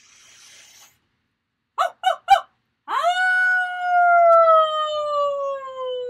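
A woman howling like a wolf as a vocal warm-up: a deep breath in, three short "oh" yips, then one long howl that swoops up and slowly slides down in pitch, pushed from the belly muscles.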